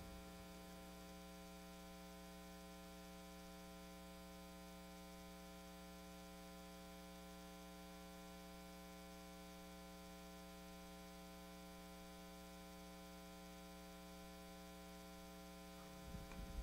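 Near silence with a steady electrical mains hum that has many overtones.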